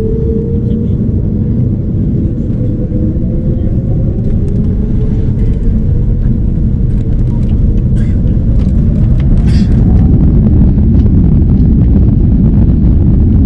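Airbus A330neo's Rolls-Royce Trent 7000 jet engines at takeoff power, heard from inside the cabin: a deep, steady rumble that grows louder as the aircraft accelerates, with a faint whine rising in pitch.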